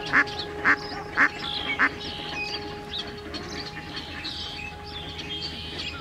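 A duck quacking four times in a steady series about half a second apart, stopping about two seconds in, followed by faint high chirps of small birds over a steady hum.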